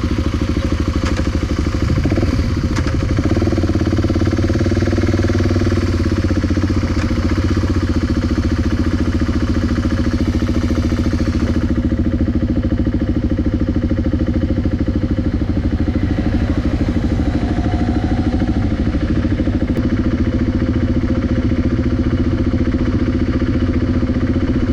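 BMW G650GS single-cylinder motorcycle engine running steadily in low gear, the bike being ridden slowly on a punctured rear tyre.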